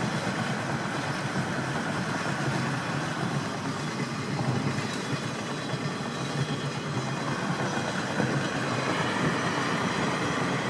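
Steady tyre and wind noise of a car at about 60 mph, mixed with an intermodal freight train running alongside at the same speed.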